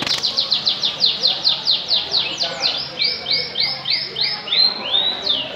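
Canary singing a rapid trill of repeated, falling, high notes, about eight a second. About halfway it changes to a slower phrase of lower, curling notes, then returns to a fast trill near the end.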